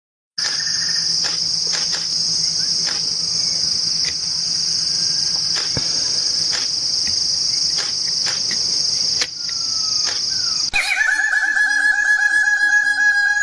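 A steady, high, shrill insect drone with faint clicks. Near the end it cuts abruptly to a loud, long, wavering crow from a rooster.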